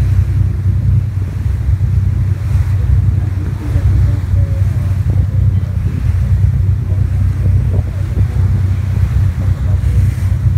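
Boat engine running with a steady low hum, mixed with wind buffeting the microphone and the wash of water.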